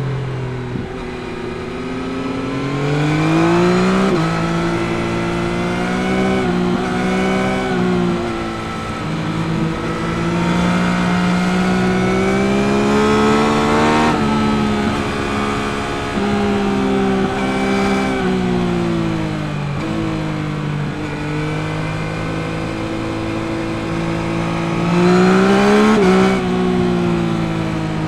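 2021 Yamaha MT-09's 890 cc three-cylinder CP3 engine, on its stock exhaust, pulling through the gears while ridden. The engine note climbs and drops sharply at each shift, about four seconds in, around fourteen seconds and again near twenty-six seconds, and sinks lower as the bike slows between pulls.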